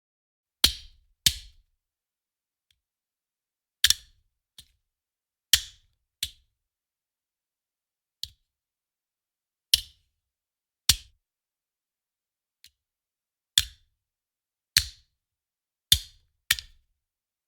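Ammunition magazine thrown down onto a hard surface, over and over: about a dozen separate sharp clacks at irregular gaps of one to two seconds, several followed by a smaller hit as it bounces.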